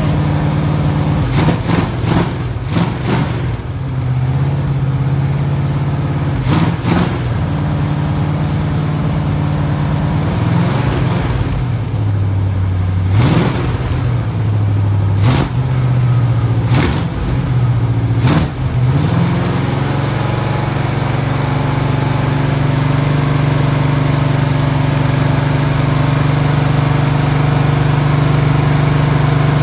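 Freshly rebuilt Oldsmobile 403 V8 running on its first start, kept at raised revs to break in the new Comp Cams camshaft. The engine speed shifts up and down several times in the first twenty seconds, with a few sharp clicks, then holds steady.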